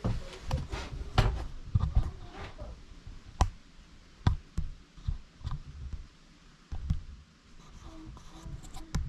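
Irregular knocks and taps from work on wooden wall boards: a quick cluster in the first couple of seconds, then single sharp knocks about once a second or less.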